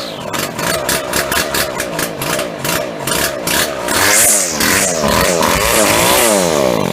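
Husqvarna 24C two-stroke grass trimmer engine running at low speed, blipped several times so that its pitch rises and falls again and again.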